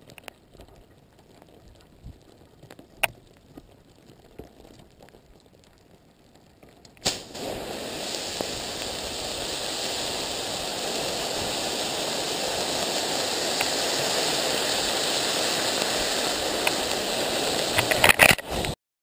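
Aluminium Coca-Cola can heated by lava, first with faint crackles and a sharp click, then about seven seconds in a sudden loud hiss as the can gives way and boiling soda sprays out. The hiss slowly grows and sputters with a few pops before cutting off.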